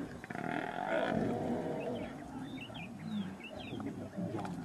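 Lions growling while an African buffalo bellows under attack, with a louder, drawn-out call in the first second and a half. A few short high chirps come in the middle.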